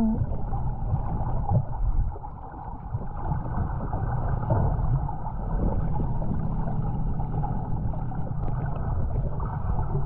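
Wind buffeting the microphone: a low, unsteady rumble that eases briefly about two seconds in, over faint shoreline water sounds.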